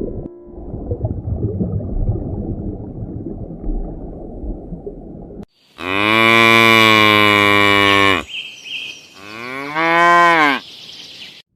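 A low, noisy rumble for about five seconds, then, after a sudden cut, cattle mooing: one long, steady moo of about two and a half seconds, followed by a shorter moo that rises and falls.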